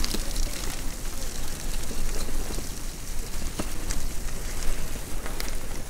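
Bicycle tyres rolling over a muddy, gritty trail, a steady hiss and crackle with many small ticks from grit and stones, under a low rumble of wind on the microphone.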